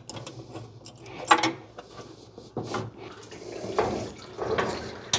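Metal hand tools clinking and clanking in an engine bay while a radiator hose fitting is worked loose: a few sharp clicks about a second apart.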